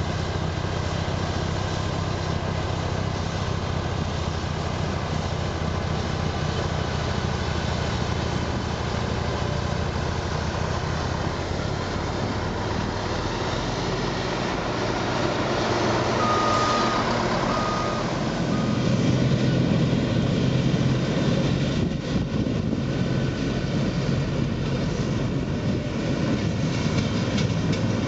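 Vohl VL-350 loader-mounted snow blower working, its 350 hp John Deere engine and the carrying loader running steadily with a deep rumble that grows louder after the middle. About halfway through, a reversing alarm beeps three times.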